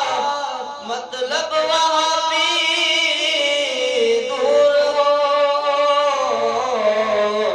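A man's voice singing an Urdu naat (a devotional song praising the Prophet) into a microphone, in long, ornamented, wavering notes.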